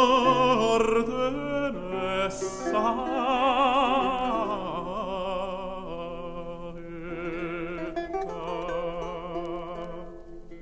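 Tenor voice singing the closing phrases of an early Italian song with a wide vibrato, over an instrumental accompaniment. The music fades out about ten seconds in.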